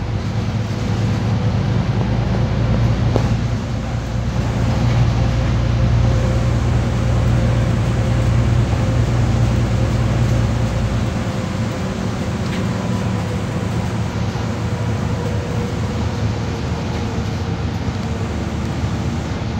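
Interior of a Solaris Urbino 12 city bus under way: steady engine drone with tyre hiss from the wet road. The deepest part of the drone drops away about eleven seconds in.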